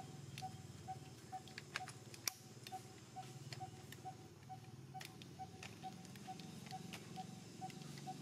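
A short, even pip repeating steadily about twice a second, over a low hum, with scattered faint clicks.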